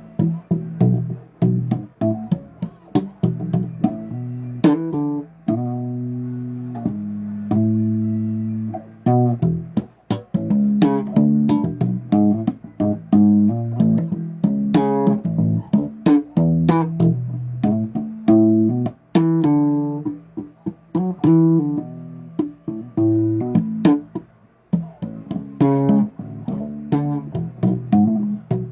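Bass guitar played solo, a running riff of plucked notes with sharp string clicks between them.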